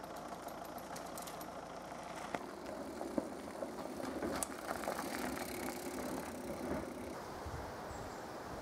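Mountain bikes rolling over a dirt and gravel track, tyres crunching on loose stones, with a few sharp clicks and rattles.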